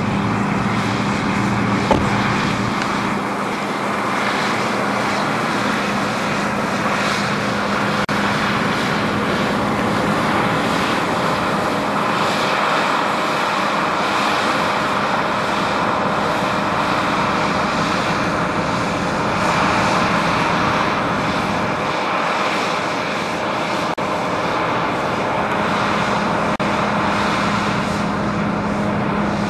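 John Deere combine harvester running while cutting grain: a steady engine and machinery drone, with a single sharp knock about two seconds in.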